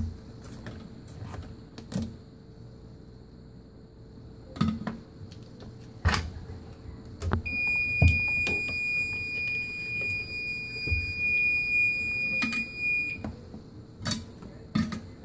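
An electronic beep tone holding one steady high pitch for about six seconds, starting about seven seconds in. Scattered sharp clicks and knocks sound before, during and after it.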